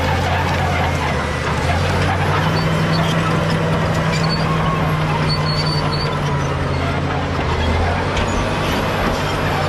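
Caterpillar D7G bulldozer's six-cylinder diesel engine running loudly and steadily as the machine works. Its note shifts about two seconds in and again near the end.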